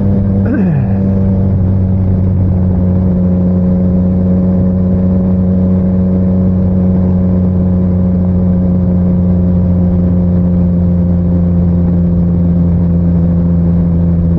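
Motorcycle engine running at a steady cruising speed, its drone holding one pitch, under a rush of wind noise on a helmet-mounted camera's microphone. A short falling tone sounds about half a second in.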